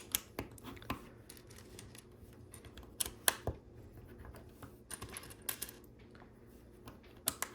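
Plastic LEGO pieces clicking and clattering as they are handled and pressed into place, in irregular sharp clicks, the loudest about three seconds in.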